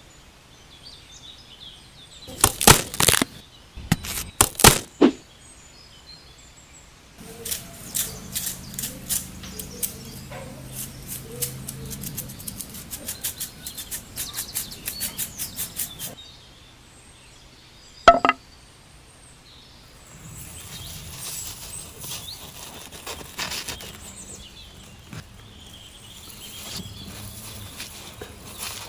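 Small clicks and taps from hand work on a miniature model build: a few sharp clicks, then a long run of rapid clicking for about nine seconds, a single sharp snap, and a soft rustling hiss near the end.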